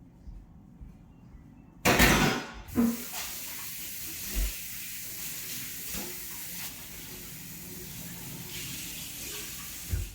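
A sudden loud rush about two seconds in, settling into a steady hiss that cuts off abruptly near the end.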